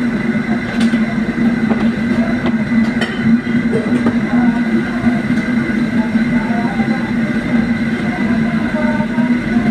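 Steady machine hum from a running motor, a low drone with a higher whine over it, with a few faint clicks on top.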